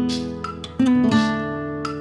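Background music: guitar chords strummed, a couple of strokes about a second in, each left to ring and fade.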